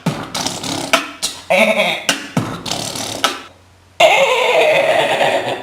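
Beatboxer imitating mechanical sound effects with his mouth: a quick run of sharp clicks and short clattering bursts, then after a brief pause one long held, hissing sound.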